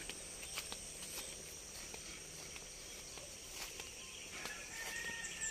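Steady high-pitched insect chirring in a cornfield, with faint scattered clicks and a faint held tone near the end.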